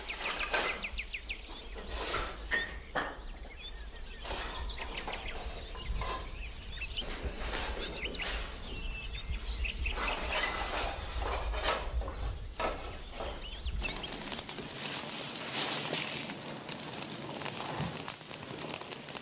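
Scattered knocks and clinks of unfired clay pots and brushwood being handled as a wood-fired pottery kiln is loaded. About fourteen seconds in, this gives way to the dense crackle and hiss of the brushwood fire burning in the kiln.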